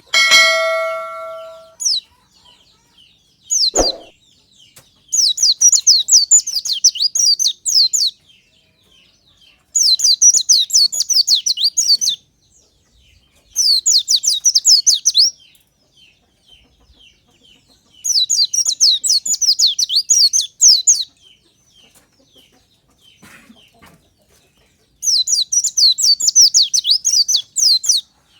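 White-eye (pleci) singing in five bouts of rapid, high, twittering notes, each lasting two to three seconds with short pauses between them. This is a lure song used to prompt caged white-eyes to sing. Right at the start there is a short held call with a clear pitch, and about four seconds in there is a single thud.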